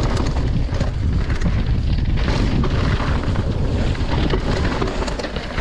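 Downhill mountain bike riding fast over a rough, rocky trail: wind buffeting the camera microphone over the low rumble of tyres on stones, with frequent small knocks and rattles from the bike taking hits.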